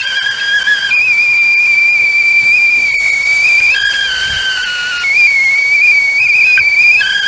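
Stovetop tea kettle whistling at the boil: a steady, loud, high-pitched steam whistle over hissing steam. Several times the whistle jumps between a two-note sound and a single higher note.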